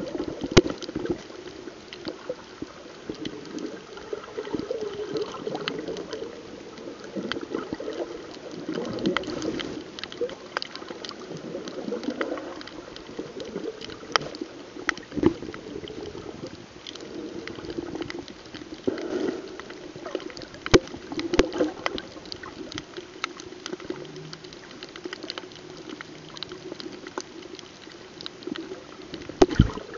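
Muffled underwater water noise, a steady sloshing and gurgling, with many short sharp clicks scattered throughout.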